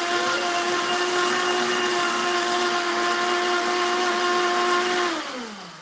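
Countertop blender running steadily as it purées a thick tzatziki mix, with a tamper pushed down through the lid. About five seconds in it is switched off and the motor winds down, its pitch falling.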